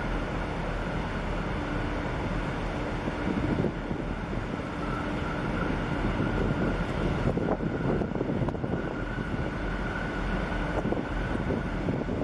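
Wind noise on the microphone over a steady drone of ship machinery from a container ship and its tug passing close by, with a faint steady hum.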